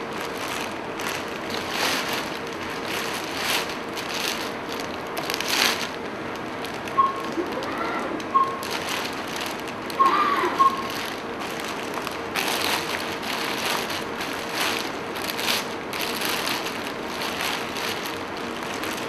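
Clear plastic sterile drape crinkling and crackling in irregular bursts as it is handled and fitted over a Da Vinci Si robot's camera arm.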